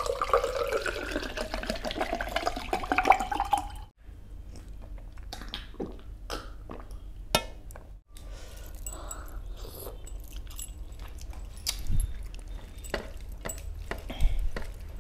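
Water poured from a plastic bottle into a glass, the pitch rising as the glass fills, stopping about four seconds in. Then scattered soft clicks and wet sounds of a hand mixing rice into fish curry on a metal platter.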